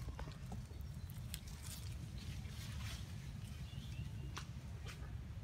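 Monkeys moving about outdoors: scattered light clicks and rustles, with a few faint short high chirps near the middle, over a steady low rumble.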